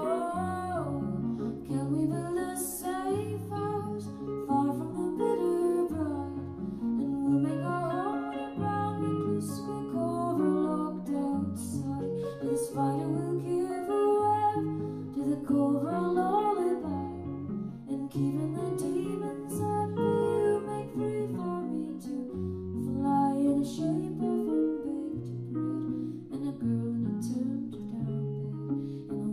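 Live band playing an instrumental passage: guitar lines with gliding, bending notes over a stepping bass line, with no sung words.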